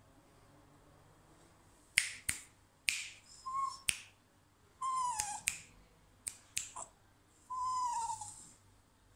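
About seven sharp finger snaps, from about two seconds in, with three short high whines between them that each dip in pitch at the end.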